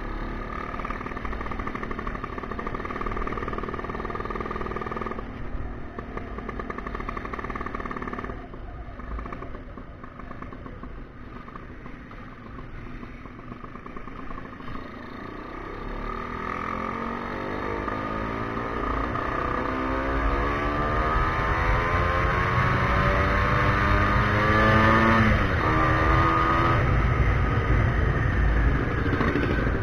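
Tuned-up Vespa scooter engine on the move: it runs steadily, eases off about five seconds in and runs quieter for a while, then the throttle is opened wide and the engine note climbs for several seconds, with a brief dip near the top, as if through a gear change, before climbing again. Near the end the engine note gives way to a steady rush at speed.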